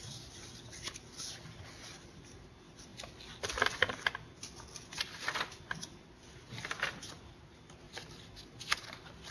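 Irregular rustling and handling of paper, with small clicks and knocks, coming in bursts a second or two apart and loudest about three and a half seconds in.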